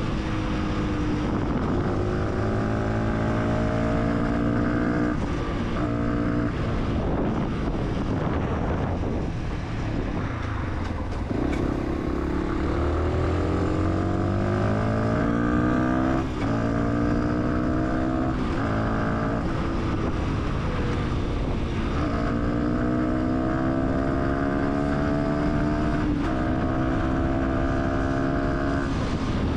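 Fantic 125 supermoto's single-cylinder engine under way, pitch climbing in each gear and dropping back at each shift. Around ten seconds in it eases off, then pulls away again and works up through the gears.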